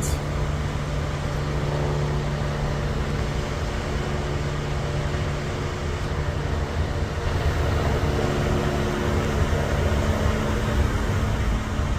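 Steady low engine drone with a constant hum.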